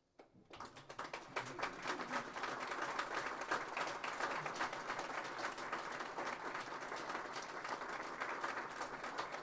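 Small audience applauding: a first clap a moment in, then within the first second a dense, steady patter of many hands clapping that holds to the end.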